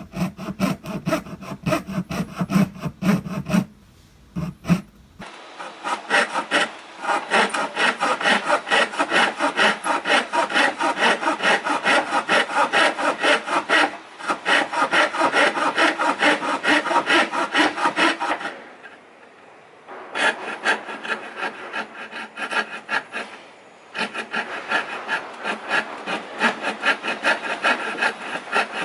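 A hand tool rubbing and scraping on wood in rapid, even back-and-forth strokes. The sound changes character about five seconds in, and the strokes stop briefly twice later on.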